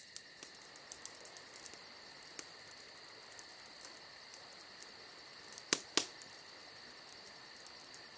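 Faint, steady chirring of insects, crickets or bush-crickets, with a few scattered ticks and two sharp clicks about a quarter-second apart a little past halfway.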